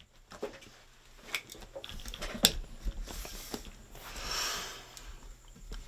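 A cardboard shipping box being handled on a table: a few light knocks and taps, then scraping and rustling about three and four seconds in.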